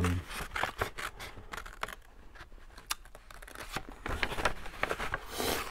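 Small craft scissors snipping through envelope paper: a run of irregular, crisp snips with paper rustling, busiest near the end.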